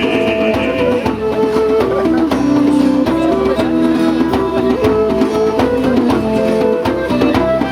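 Band playing an instrumental passage between sung verses of a song, with melodic lines over plucked or strummed string accompaniment.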